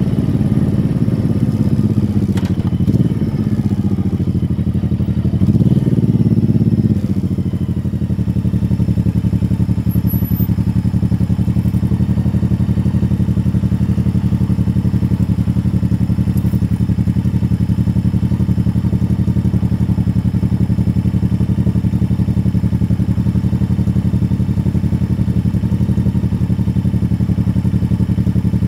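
Motorcycle engine running. Its pitch shifts for the first seven seconds, with a brief rise near six seconds, then it settles into a steady, evenly pulsing idle. A single click comes about two seconds in.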